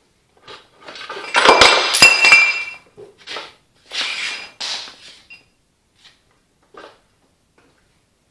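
Steel wheel clamps on a tractor's rear wheel rim clanking and ringing as they are worked loose. There is a loud clatter of metal knocks about a second in, then a few lighter clinks.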